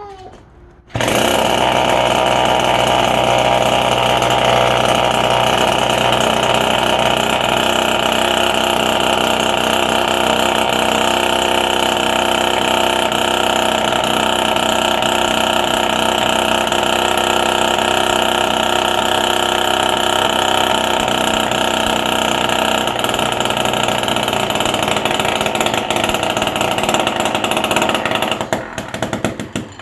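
Small 47cc two-stroke scooter engine running at a steady speed. It comes on about a second in and stops near the end.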